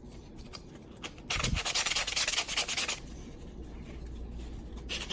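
Sanding a 3D-printed PLA part: quick back-and-forth rasping strokes in two spells, one starting about a second in and a second starting near the end. The sanding eases the parts' tight fit.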